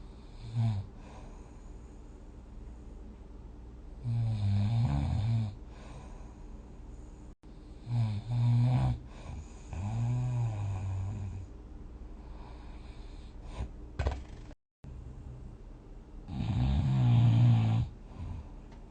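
A sleeping person snoring: low-pitched snores of about a second or two each, coming every few seconds, with a short sharp snort about two-thirds of the way through.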